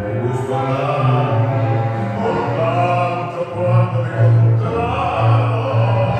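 Recorded tango music playing over a dance hall's sound system, with a steady bass line and long held melodic notes.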